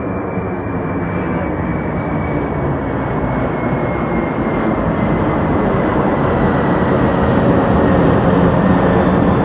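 Large jet airliner's engines running loud as it passes nearby: a steady rumbling roar with a thin high whine that slowly drops in pitch, growing steadily louder.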